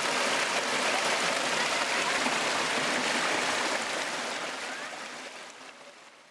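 Water from a small waterfall spilling over a stone ledge, rushing steadily, then fading out over the last two seconds.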